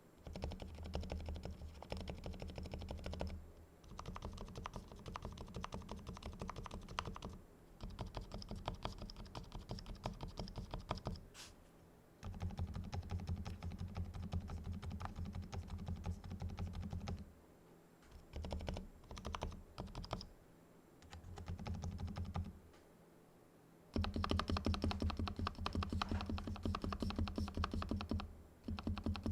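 Varmilo VA87 mechanical keyboard with silent red switches and tuned stabilizers, typed on fast in runs of a few seconds with brief pauses between them. The keystrokes are muted, with a low thock.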